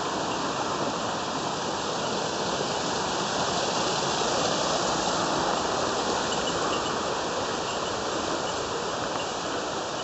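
Mountain stream rushing over rocks: a steady, even rush of water, slightly louder around the middle.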